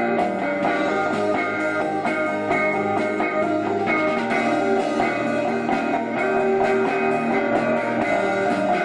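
A rock band playing live: sustained, distorted-sounding electric guitar chords over drums, with frequent cymbal and drum strikes.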